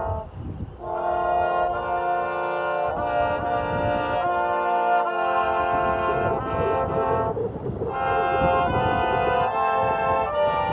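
Slow instrumental music of sustained chords, changing every second or two, with a brief drop near the start.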